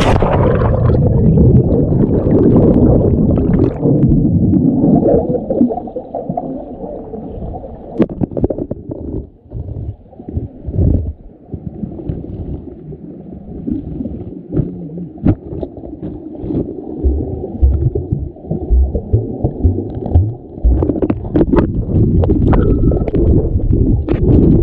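Muffled underwater rumbling and gurgling picked up by a head-mounted action camera plunged into a waterfall pool, with scattered knocks. The sound turns muffled abruptly as the camera goes under.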